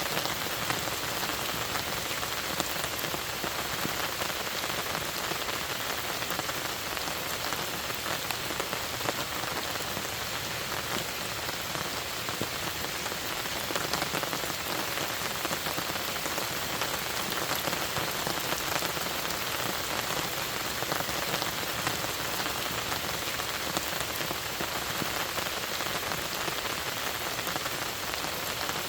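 Steady rain falling on a lake, a dense even hiss with many small drop ticks.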